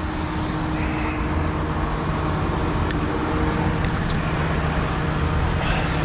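Heavy recovery truck's diesel engine running steadily, driving the hydraulics as the boom and underlift are worked, with a few light clicks.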